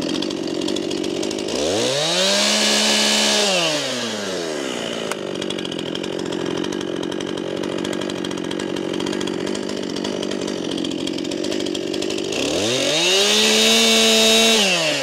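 Stihl chainsaw idling, revved up to full speed twice for about two seconds each, a little after the start and near the end, dropping back to idle between: short cuts marking out the hinge on the trunk before the bore cut.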